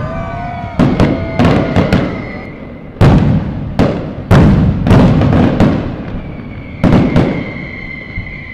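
Fireworks going off: a dozen or so sharp bangs in quick, irregular succession, each with a short fading tail, starting about a second in.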